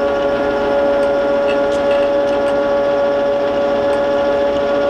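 Rapid power traverse of a Blanchard 22K-42 rotary surface grinder raising the grinding head: a steady, loud mechanical whine at one pitch with overtones, from the motor and gearing driving the head up.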